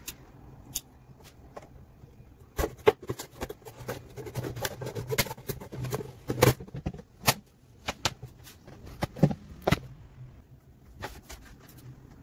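Thin plastic of an empty oil jug crackling and clicking irregularly as a knife blade is worked through it and hands grip and flex it. A faint low hum runs underneath.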